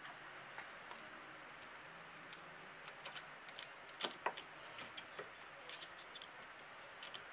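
Scattered small metallic clicks and taps as the slider bushing and ring are worked onto a motorcycle fork tube. There is a cluster of sharper clicks about three to four seconds in, the loudest just after four seconds.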